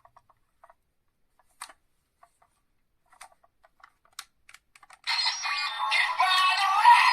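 A few light plastic clicks from the toy being handled. About five seconds in, a small toy speaker suddenly starts playing electronic music with a synthesized singing voice: the transformation-belt sound effect, thin and tinny with no bass.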